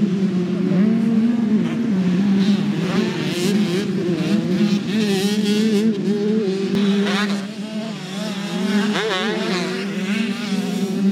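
Two-stroke motocross bike engines racing, their pitch rising and falling as riders work the throttle over the jumps, with more than one bike heard at once. Sharper revs rise and fall twice in the second half.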